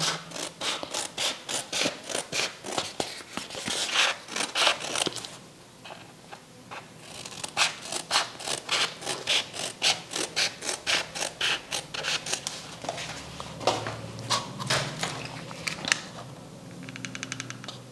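Scissors cutting a sheet of glitter craft foam, a run of crisp snips about three a second, with a pause of a second or so partway through.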